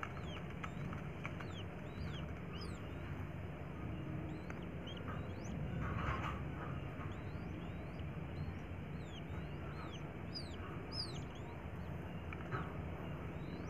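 Quail chicks peeping: many short, thin, high chirps in an irregular scatter, the calls of chicks calling for their mother. A steady hiss lies underneath.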